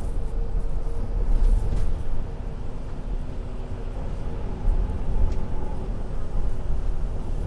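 Inside a bus while it runs: steady low engine and road rumble with a faint engine hum, and a few light rattles.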